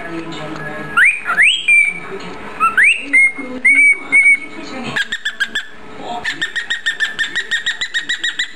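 Cockatiel whistling: a few rising whistles that each end on a short held note, then from about halfway a fast run of short repeated chirps, about six a second.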